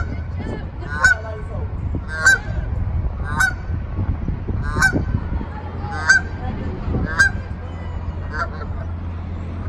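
Canada goose honking repeatedly, about once a second, a regular series of eight or so calls over a steady low hum.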